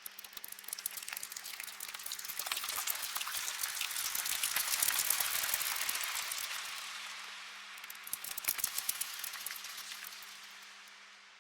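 Bat swarm sound effect: a dense, rapid crackle of fluttering wings and clicks that swells to a peak about five seconds in, eases off, flares again briefly near nine seconds, then fades away. A faint steady low hum sits underneath.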